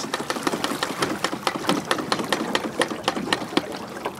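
Yamaha 25 hp two-stroke outboard running rough with an uneven rapid clatter, sputtering as it runs out of fuel: the tank feeding it is empty.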